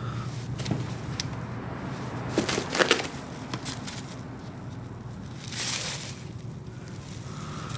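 Plastic wrapping crinkling and rustling as a wrapped bundle is handled: a cluster of sharp crackles about two and a half seconds in and a shorter rustle near six seconds, over a steady low hum.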